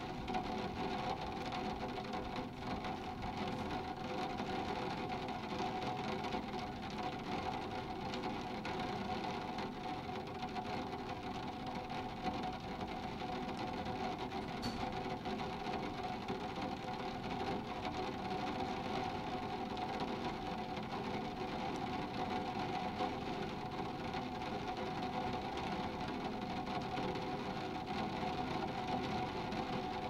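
Light rain falling on the glass of a skylight, heard from the room below: a steady, dense patter of small drops.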